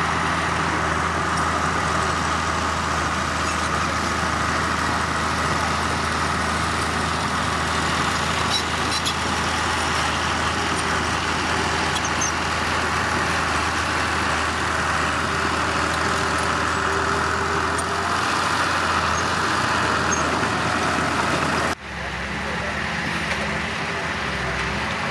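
Heavy diesel engine of earthmoving machinery running steadily under load, with a low, even hum. Near the end an abrupt cut switches to a different, higher engine note.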